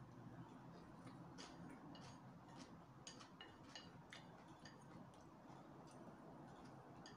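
Faint, irregular mouth clicks and smacks of someone chewing noodles, a few per second.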